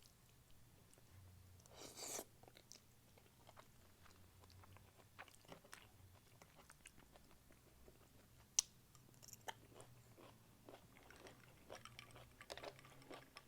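Faint chewing and small clicks of a person eating a meal, with a brief rustle about two seconds in.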